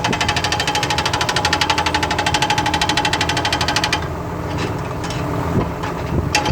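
Excavator-mounted hydraulic breaker hammering in a fast, even rhythm over the excavator's running engine. The hammering stops about four seconds in, leaving the engine running with a few scattered knocks.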